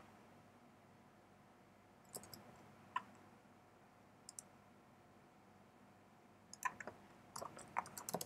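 Faint computer keyboard keystrokes: a few isolated clicks, then a quicker run of them in the last two seconds.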